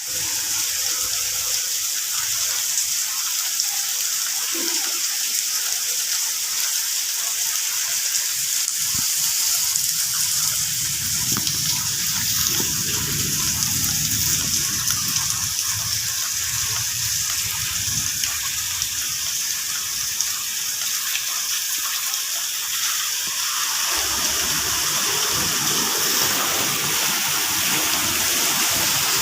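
Heavy rain falling steadily, a constant hiss of water, which grows fuller and lower from about 24 seconds in.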